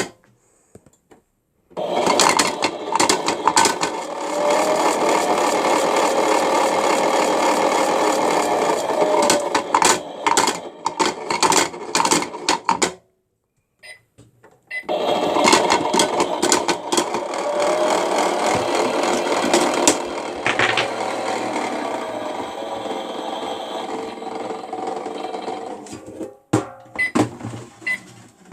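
Battery-powered toy washing machine running: a small motor whirs with a plastic rattle, its pitch rising and falling, for about eleven seconds. It stops for about two seconds, then runs again for about twelve seconds, dropping a little in level partway through.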